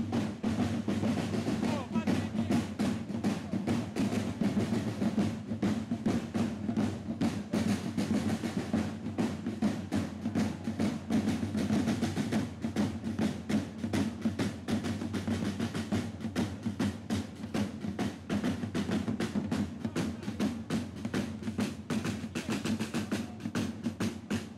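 Several rope-tensioned parade side drums played together in a steady, fast marching rhythm of rapid strokes, the drum corps accompanying a flag-throwing display.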